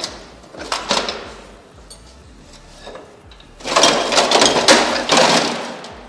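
Heavy steel tractor gearbox parts (gears, shafts and the gear-shift top cover) clanking and scraping against each other as they are lifted and moved. There are a few clanks near the start, then a longer stretch of rattling clatter in the second half.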